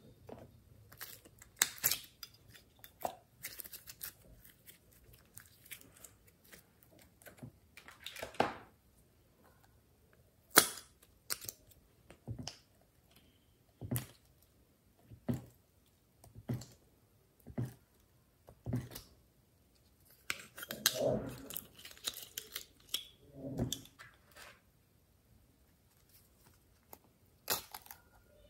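Glossy slime being handled and squeezed, making scattered sharp sticky clicks and pops at irregular intervals, with a longer stretch of squelching about two-thirds of the way through.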